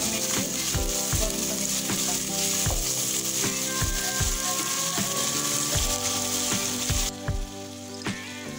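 Spiced onion masala sizzling in hot mustard oil in a pot as it is fried down with a little hot water, stirred with a wooden spoon at first. The sizzle cuts off suddenly about seven seconds in.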